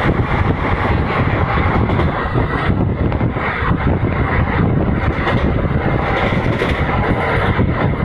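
Indian express passenger train running at speed, heard from aboard the coach: a loud, steady rumble of the wheels on the rails.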